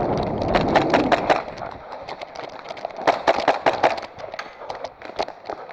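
Airsoft guns firing: irregular clusters of sharp snapping clicks, one about a second in and another around three to four seconds in.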